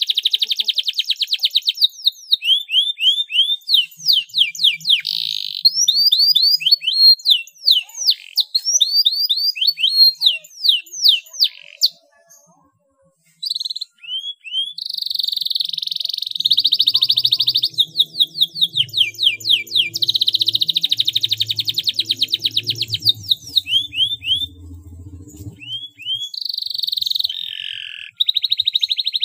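Domestic canary singing a long song of fast rolling trills and quick rising-and-falling whistled notes, breaking off briefly about twelve seconds in before carrying on.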